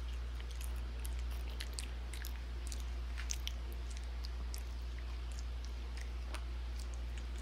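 Two-toed sloth chewing blackberries at close range: irregular wet smacking and clicking mouth sounds, over a steady low hum.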